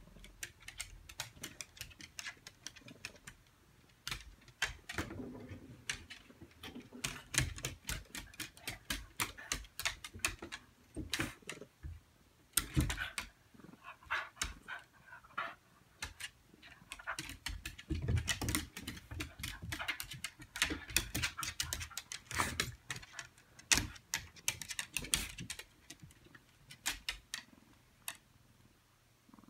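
A dog's claws clicking and scrabbling on a tiled floor as it moves and lunges around a cat. The clicks come in quick, irregular clusters.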